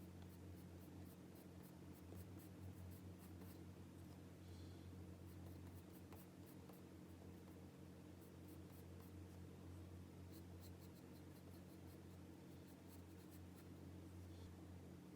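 Pencil scratching on paper in faint runs of short, quick strokes, over a low steady hum.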